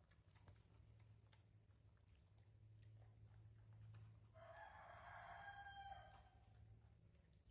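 A rooster crowing once, faintly, a drawn-out call of about two seconds from around four seconds in, over a low steady hum.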